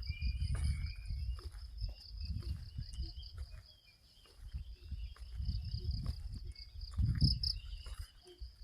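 An insect, cricket-like, trilling steadily in a fast pulsing high-pitched chirr, with a weaker lower band beneath it. Irregular swells of low rumbling noise rise and fall under it, loudest about a second in and again around seven seconds in.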